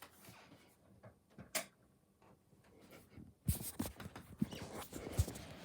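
Handling noises as toy cars and their boxes are moved about: a single sharp click about one and a half seconds in, then a cluster of irregular knocks and rattles from about three and a half seconds.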